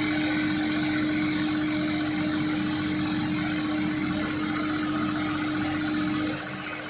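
Rippa 2.5-ton mini excavator engine idling steadily with a constant hum. About six seconds in it drops noticeably quieter.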